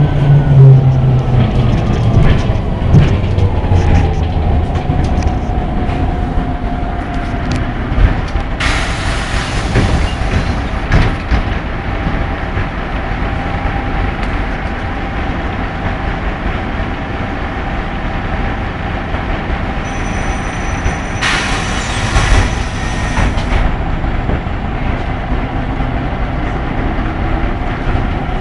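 Ikarus 260 city bus heard from inside: its diesel engine and drivetrain wind down with a falling whine as the bus slows to a stop, then keep running steadily. Two long hisses of compressed air, about nine and twenty-one seconds in, typical of the pneumatic doors opening and closing.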